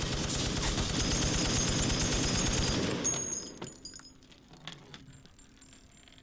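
Trunk-mounted M60 machine gun firing a long, unbroken automatic burst. The fire stops about three seconds in, followed by scattered sharp clicks and metallic tinkling of spent brass that fade away.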